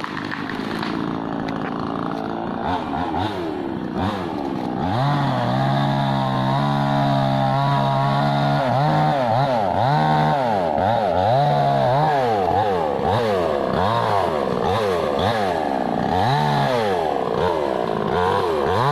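Two-stroke gasoline chainsaw engine being revved up and let back down over and over, about once a second. For a few seconds in the middle it is held at a steady high speed.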